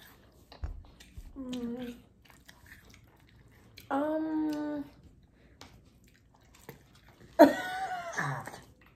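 Quiet chewing and small mouth clicks from people eating apple slices, broken by a short held hum about four seconds in and brief voice sounds near the end.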